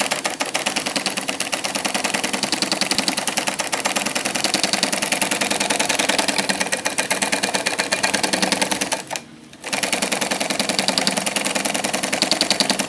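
NC 81200SN twin-needle netting machine sewing binding tape onto a net at speed, with a rapid, even clatter of stitching. It stops for about half a second around nine seconds in, then starts again.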